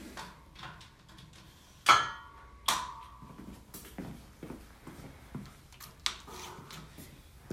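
Small cast-iron weight plates clanking onto a steel barbell sleeve: two loud ringing metal clanks about two seconds in, then several lighter knocks and clicks as the plates are handled and pushed on.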